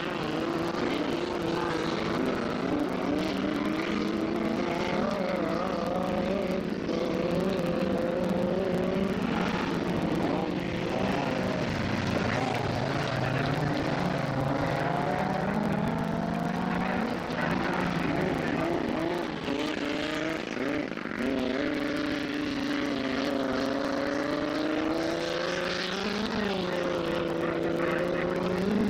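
Autocross racing cars' engines revving on a dirt track, the notes rising and falling through the gears as the cars pass, several engines overlapping. There is a quick rev blip near the end.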